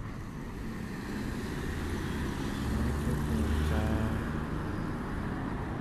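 Road traffic: a motor vehicle passing close by, its low engine and tyre rumble building to its loudest about three to four seconds in, with a brief higher whine near four seconds in.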